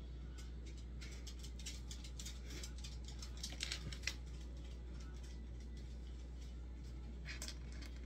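Light, quick tapping and clicking of a paintbrush and painting supplies being handled: a rapid string of ticks for a few seconds, loudest near the middle, then a short cluster near the end, over a steady low hum.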